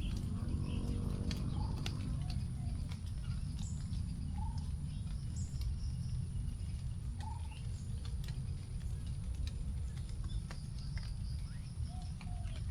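Last raindrops dripping onto leaves after rain, scattered single ticks, with short bird chirps and calls here and there over a steady low rumble.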